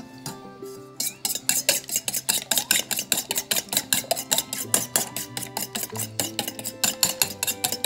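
Raw eggs beaten with a fork in a stainless steel bowl: quick, regular strokes with the fork clicking against the metal, starting about a second in.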